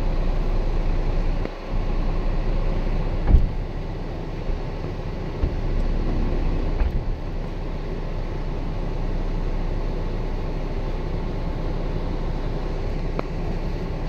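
Heavy truck's diesel engine idling steadily, heard from inside the cab, with a single thump about three seconds in.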